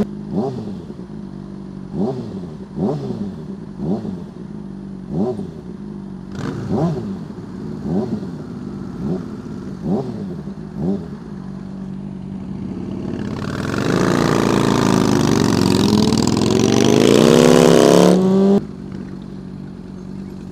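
Motorcycle engine ticking over with about a dozen quick throttle blips, roughly one a second, then a loud five-second run of throttle with wind rush and the engine pitch climbing and dipping, cutting off suddenly near the end.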